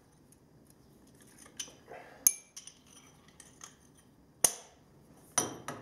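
Steel wrench clinking and knocking against the bolt and pulley of a combine's Schumacher knife drive as it is fitted, a few sharp metallic clinks, the loudest about two seconds in and again about four and a half seconds in.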